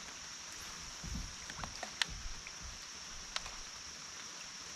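Hobie Lynx kayak sitting on a quiet creek: soft water movement with a low thump about a second in and a few light clicks and knocks, over a steady high hiss.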